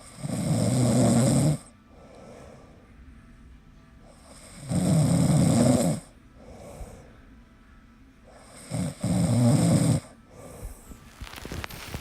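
A person snoring: three loud snores about four seconds apart, each lasting over a second, with softer breaths between. A few faint clicks come near the end.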